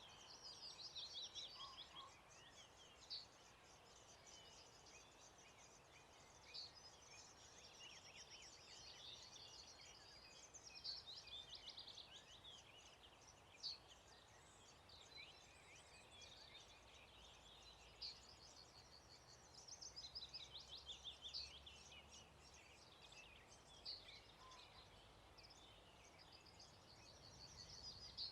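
Faint dawn chorus: several songbirds singing at once, their chirps and trills overlapping continuously over a quiet background hush.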